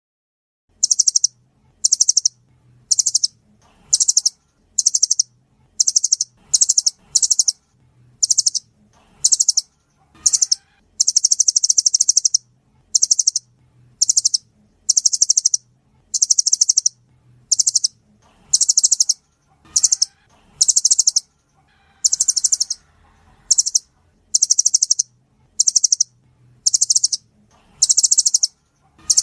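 Nuthatch calling: a long series of short, high, rapid chattering trills, about one burst a second, starting shortly after the start.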